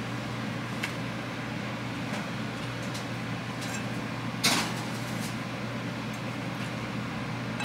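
Steady low background hum, with one sharp knock about four and a half seconds in and a few faint clicks around it.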